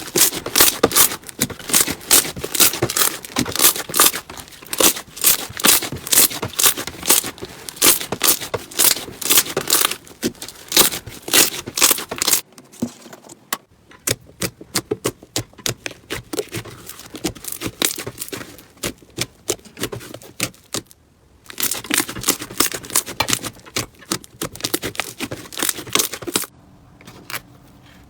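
Slime being squeezed and poked by hand, giving rapid, dense crackling and popping. The sound breaks off briefly twice, about twelve seconds in and again about twenty-one seconds in, then turns quieter near the end.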